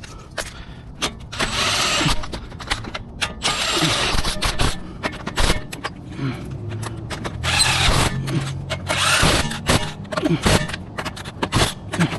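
A cordless impact wrench running in four short bursts of about a second each as it spins the wheel's lug nuts on, with clicks and knocks of handling between the bursts.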